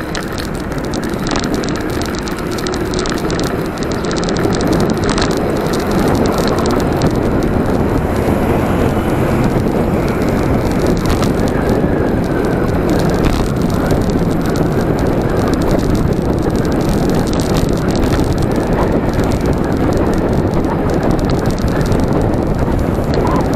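Wind rushing over the microphone of a bicycle-mounted camera as the bike rides along at speed, mixed with tyre and road noise; a steady rushing noise that grows louder a few seconds in.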